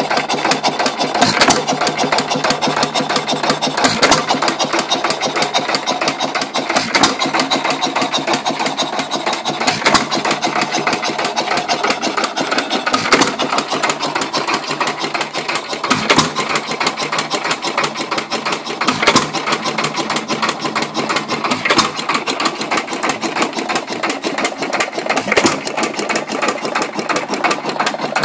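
Jaeger 2 hp hit-and-miss stationary engine running, a fast steady mechanical clatter as the flywheels carry it round. A louder bang comes about every three seconds as it fires.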